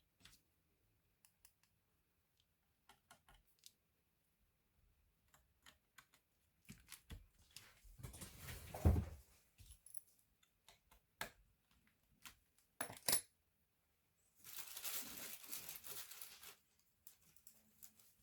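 Small clicks and taps of laptop parts and tools being handled on a work surface, with a louder clatter and thud about nine seconds in and a couple of seconds of scraping or rustling near the end.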